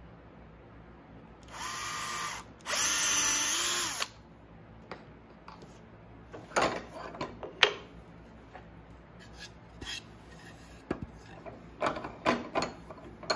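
Cordless drill boring a pilot hole into a wooden block in two short runs, the second a little longer and louder. Then a string of sharp knocks and clatter as tools and wood are handled and set down on the workbench, the sharpest about halfway through.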